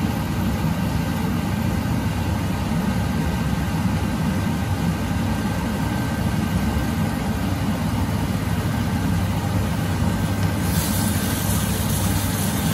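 Steady low mechanical hum with an even rushing noise, a brighter hiss joining near the end.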